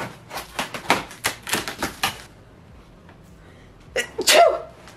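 A blade slitting the packing tape across the top of a cardboard box: a quick run of sharp scratchy rips and ticks lasting about two seconds. Near the end, a woman sneezes once.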